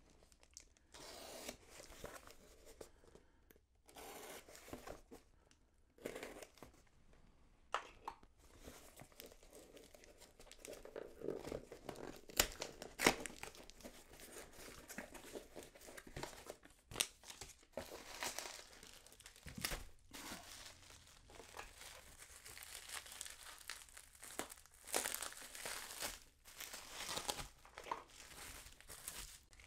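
A cardboard shipping box being opened by hand: packing tape slit with a pen and torn, cardboard flaps pulled back, then bubble wrap crinkling as the contents come out. Irregular rustling and tearing, with a few sharp clicks.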